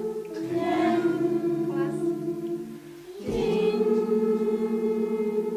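Voices chanting the long, drawn-out syllables 'tin-nyan' on held tones. Each phrase steps down in pitch, with a short breath about three seconds in before the chant starts again.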